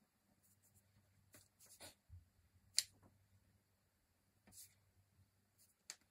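Faint, scattered strokes of a paintbrush on watercolour paper: short soft scratches and brushings. A sharp tick comes just under three seconds in and another near the end.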